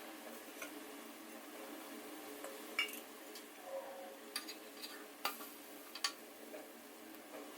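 Scattered clinks and taps of metal kitchen utensils against cookware, sharpest about three seconds in and again around five and six seconds in, over a steady low hum.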